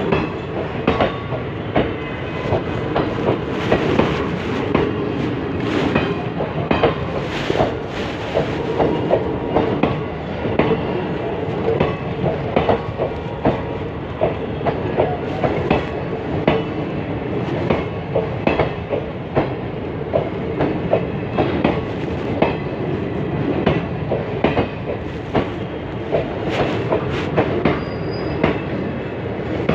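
Passenger train wheels running over rail joints at speed: a steady rumble with many sharp clicks in a tabla-like clickety-clack.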